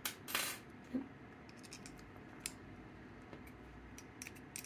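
Small-parts handling on a tabletop: a scrape and a knock as a metal Allen key is picked up, then a few light clicks as it works an M3 screw into the filament sensor and its plastic mount.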